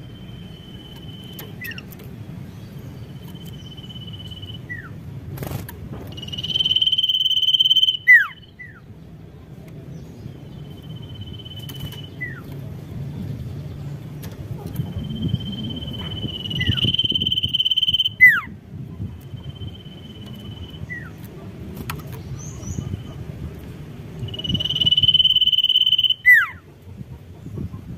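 A sirtu (cipoh), a common iora, singing: long, steady high whistles held for a second or two, mixed with quick notes that slide steeply down in pitch, repeated every few seconds. A low, steady background rumble runs underneath.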